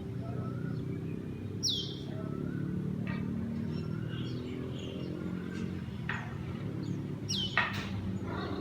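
Birds chirping outdoors, with two sharp, falling whistle calls, about two seconds in and again near the end, and fainter chirps between, over a steady low hum.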